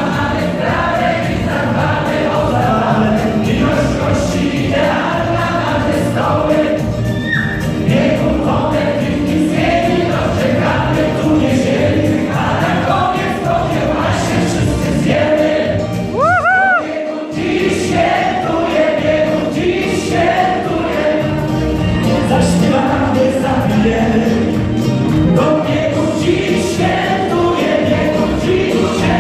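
A mixed group of adults singing a song together in Polish, like an amateur choir, with a brief break about halfway where a single note rises and falls.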